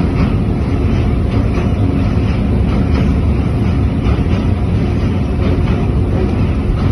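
Passenger train running, a steady low rumble heard from on board, with wind buffeting the microphone.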